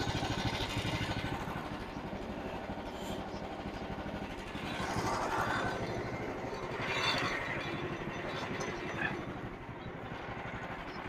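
Frontier OS27 portable band sawmill running, its small gasoline engine working steadily while the band blade cuts through a red oak log.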